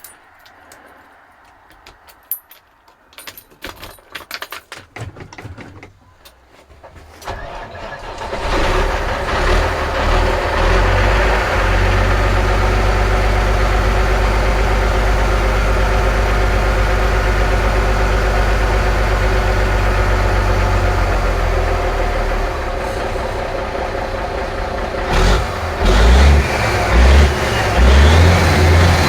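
A few clicks and knocks, then the 1983 Kenworth K100's diesel engine cranks and catches about eight seconds in and runs steadily. It is revved in several short blips near the end.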